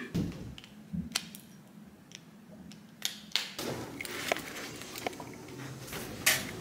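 Scattered light knocks and clicks of handling and footsteps in slide sandals, then from about three and a half seconds in a steady background rush comes up under a few more footsteps.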